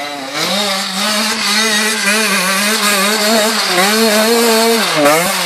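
Enduro dirt bike engine revving hard under load as it climbs a steep dirt slope, the pitch wavering up and down as the throttle is worked. Near the end the revs drop, then pick up again in a few quick blips.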